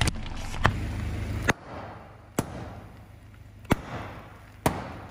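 Puffed-up sealed plastic toy packets bursting one after another under a slowly rolling car tyre: about six sharp pops in five seconds. A low rumble runs under the first second and a half.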